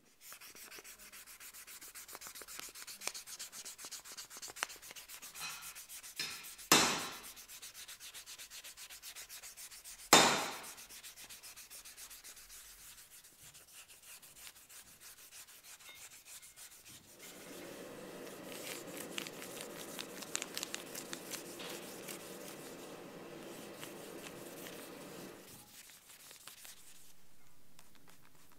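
Abrasive paper being rubbed by hand over the face of a forged EN9 steel hammer head in quick, repeated strokes. Two sharp knocks stand out, about seven and ten seconds in.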